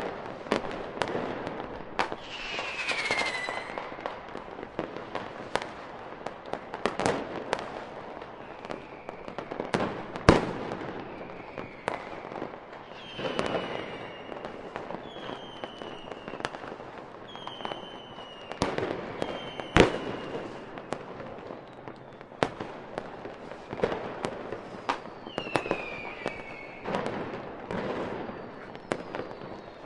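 Fireworks display: a continual run of bangs and crackling shell bursts, with the two loudest bangs about a third and two thirds of the way through. Several short whistles falling in pitch sound between the bursts.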